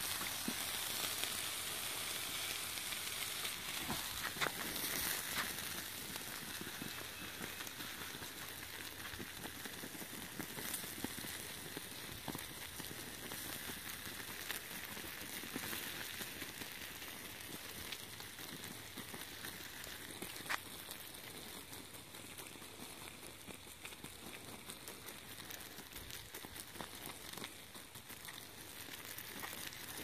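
Water from a garden hose spraying onto the smouldering ashes and hot burnt cable, with a steady hiss and sizzle and scattered small crackles as the embers are quenched. It grows slightly quieter as the fire is put out.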